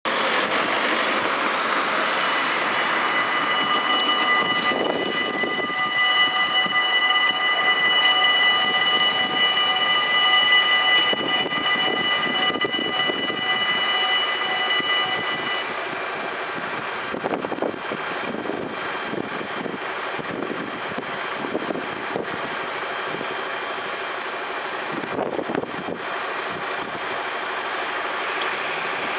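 Dutch automatic half-barrier level crossing's warning bells ringing steadily from about two seconds in while the barriers come down, then falling silent about halfway through once the barriers are down. The rest is a steady rumble with a few dull knocks as the electric Sprinter train approaches.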